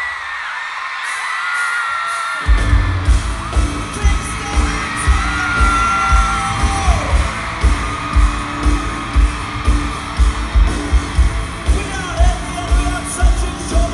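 Pop-rock band playing live with a singer, recorded from among the audience. The bass and kick drum drop out for the first couple of seconds, then the kick drum comes back in with a steady beat of about two a second.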